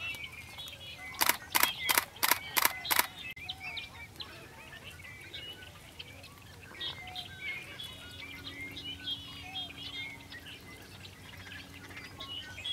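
Small birds chirping on and off in the background. About a second in, a quick run of six sharp clicks: a camera shutter firing in burst mode.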